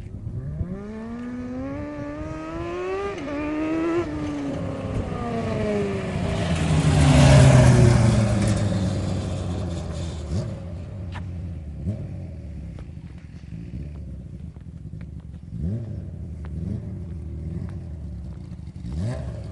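Shifter go-kart with a Suzuki GSX-R 600 inline-four motorcycle engine accelerating hard, its pitch climbing through several upshifts. It passes close by at its loudest about seven seconds in, then fades away as the pitch falls. A few short, fainter revs rise again later.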